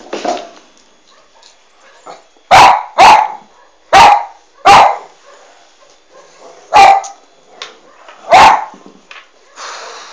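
Dog barking: about seven loud, sharp single barks, some in quick pairs, with short gaps between.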